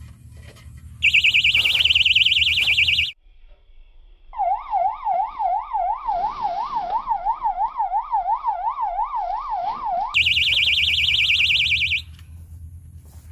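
Electronic fishing bite alarm going off, signalling a fish pulling on the line. It gives a fast, high warble for about two seconds, then a lower, slower siren-like wail for about six seconds, then the fast high warble again.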